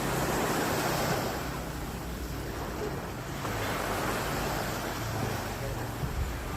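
Sea waves washing onto the shore, the surf swelling twice, with a low wind rumble on the microphone.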